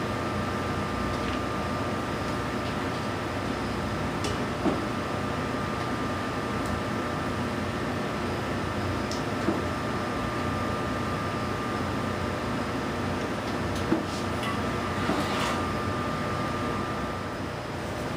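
Steady ventilation hum with a thin high whine, like a fan or air-conditioning unit running. Over it, a few light clicks and knocks as the aircraft wheel and its mask pieces are handled.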